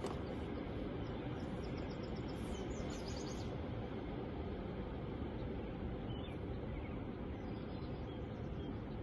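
Outdoor ambience: a steady rushing background noise, with a small bird chirping in quick runs of short high notes early on and a few fainter chirps later.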